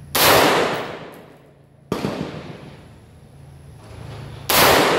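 Three single rifle shots from a semi-automatic M16A2-clone AR-15, about two seconds apart, the middle one quieter. Each crack leaves a long echo under the covered firing line.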